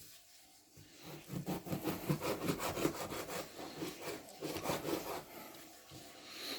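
A run of quick, irregular scraping and rubbing strokes lasting a few seconds, fading out near the end.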